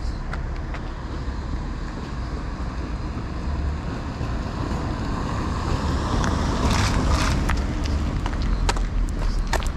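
Street traffic ambience with a low wind rumble on the microphone; a vehicle passes close by about six to seven seconds in.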